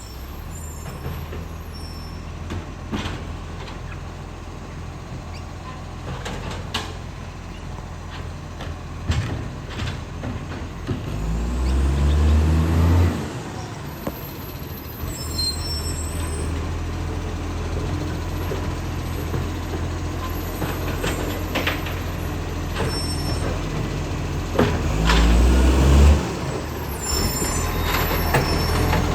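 Acco garbage truck's diesel engine running at idle, revving up strongly twice with a rising pitch, with scattered short knocks; the truck has an exhaust leak.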